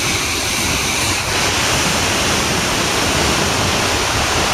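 Tännforsen waterfall: a loud, steady rush of falling water and churning whitewater rapids. The rush turns brighter and hissier about a second in.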